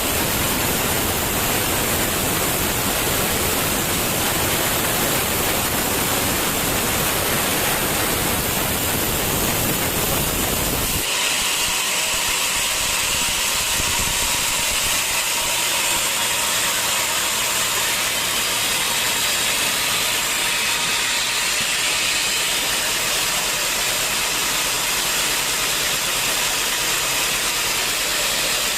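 Sawmill machinery running with a loud, steady noise. About 11 seconds in, the low rumble drops away suddenly and a higher hiss takes over.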